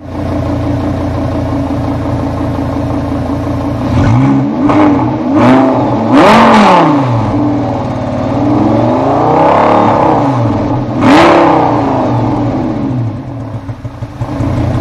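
Lamborghini Gallardo's 5.2 FSI V10, heard at its quad exhaust tips, idling and then blipped. Four quick revs come about four to seven seconds in, then a slower rise and fall near ten seconds, and one more sharp rev a little after eleven seconds. It drops back to a quieter, slightly uneven idle near the end.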